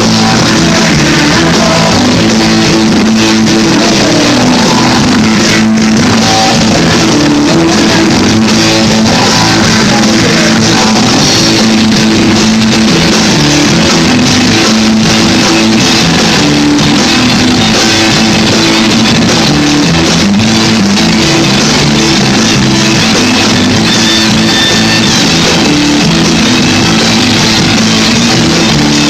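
Loud rock music: a band playing with guitar and drums.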